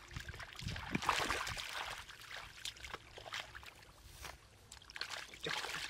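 Water splashing and sloshing in irregular bursts, with a few dull low thuds.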